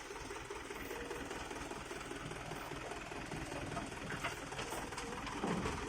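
Diesel engine idling steadily, a low, even mechanical rumble.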